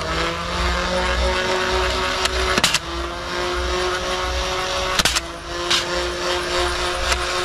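A small motor running with a steady hum, rising slightly at the start, broken by sharp clicks about two and a half seconds apart.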